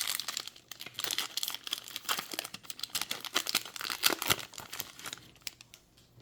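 Hockey card pack wrapper being torn open and crinkled by hand, a dense run of crackles that dies away near the end.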